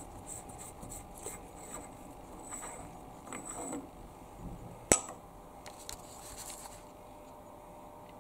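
A threaded ring being tried on and taken off a freshly single-point-cut external thread on a lathe workpiece, a check of the thread's fit between cuts: light scraping and small clicks, with one sharp click about five seconds in, over a faint steady hum.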